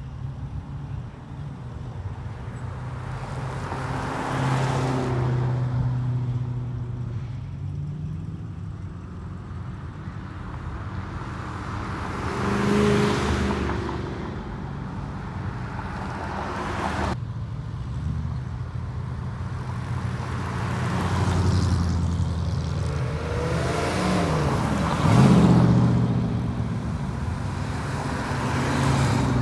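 Car engines passing one after another, about five cars, each one's engine sound swelling and fading as it goes by. The loudest pass, with the engine pitch sweeping, comes near the end.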